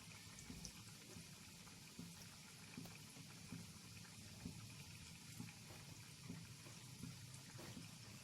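Faint sizzling and bubbling of namak pare dough pieces deep-frying in hot oil on a medium-low flame, with small irregular ticks.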